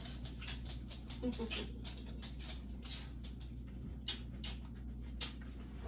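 Irregular light clicks, taps and rustles of kitchen items being handled during cooking, over a steady low hum.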